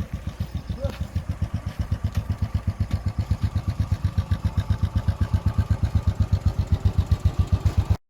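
1985 Enfield Fury's single-cylinder two-stroke engine idling with a steady, even beat, cutting off suddenly near the end.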